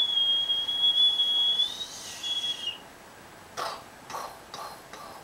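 A person whistling one high, steady note for about two seconds, rising slightly at the end, then a shorter second note after a brief break. A few short, soft noises follow near the end.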